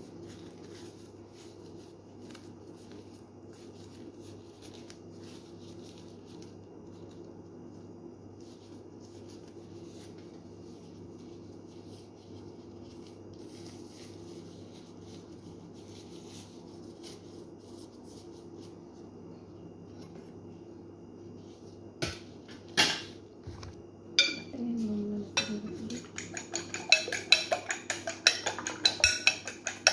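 Kitchen utensils clinking against dishes, over a steady low hum: faint ticks at first, a few sharp knocks about three-quarters of the way in, then rapid clicking at about four strokes a second near the end.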